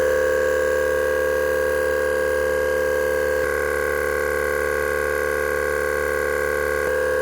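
Total TTAC2506 12-volt portable tyre compressor running steadily while inflating a car tyre, a constant humming whine. Its tone shifts slightly about halfway through and shifts back near the end.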